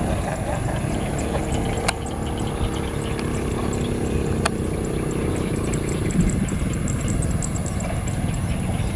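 Diesel locomotive of an approaching passenger train running, a steady low engine drone with a faint held tone that fades about six seconds in. Two faint clicks, about two and four and a half seconds in.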